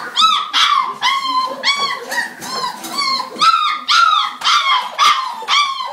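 Puppies yelping and whining, a rapid string of short high-pitched cries that rise and fall, about two a second.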